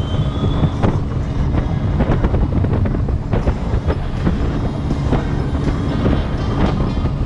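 Small motorboat underway across light chop: a loud, steady low rumble of engine and wind, with irregular knocks as the hull slaps the waves.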